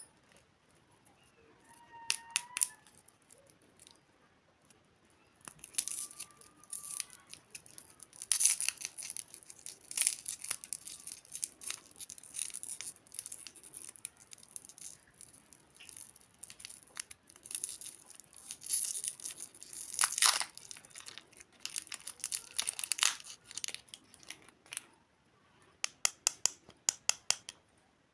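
A candy wrapper being torn open and crinkled by hand, in uneven bursts of crackling, with a quick run of sharp clicks near the end.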